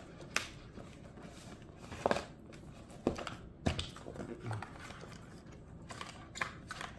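Cardboard box and packaging inserts being handled: rustling and scraping, with a handful of sharp taps and knocks as the box parts are lifted and set down.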